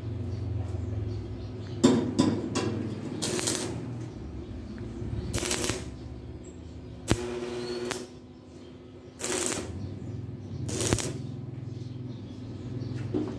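Metal fabrication work: about seven short, sharp knocks and noisy bursts, spaced one to two seconds apart, over a steady low hum.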